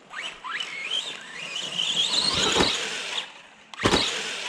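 Arrma Big Rock RC monster truck's electric motor and geartrain whining up in pitch under throttle: two short rising bursts, then a long climbing whine, on a new gear mesh that is running well. A sharp thump comes near the end.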